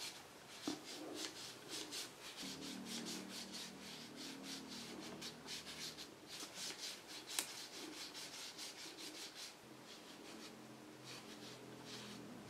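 Paper automaton being cranked: rhythmic paper-on-paper rubbing of its moving parts, about four strokes a second, with one sharp click about seven seconds in. The rubbing grows fainter and sparser after about nine and a half seconds.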